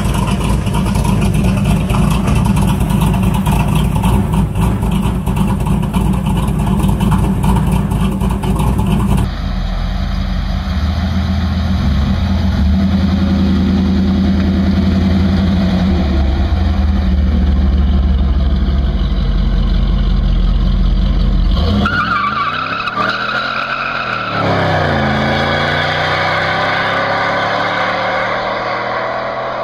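Chevrolet 305 High Output small-block V8s in third-generation Camaros, in a run of cut-together clips. The engine runs steadily with a deep exhaust rumble, then, about two-thirds through, the note swings up and down before climbing steadily as the car accelerates.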